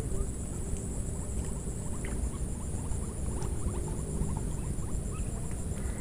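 Outdoor ambience: a steady low rumble with a constant high-pitched hiss and many faint short chirps and clicks scattered throughout.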